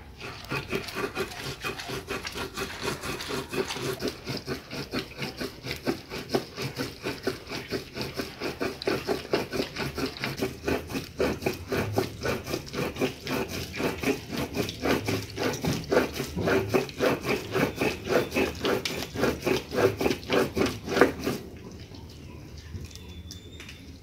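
Stone mano scraping back and forth over a stone metate, grinding dried red chiles and salt into a paste, in a quick, even rhythm of rasping strokes. The grinding stops a few seconds before the end.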